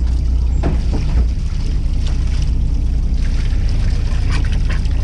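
Fishing boat's engine rumbling steadily underneath, with water splashing and dribbling in short spurts as fish and water are tipped from a basket into a mesh net bag.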